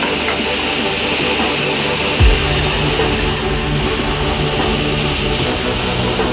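Electric woodworking power tool running steadily with a high whine. About two seconds in there is a single low thump, and a lower hum joins the running from then on.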